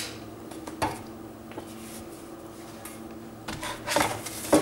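A steady low hum, then from about three and a half seconds in paper leaflets rustling and knocking against a plastic control-panel enclosure as a hand pulls them out.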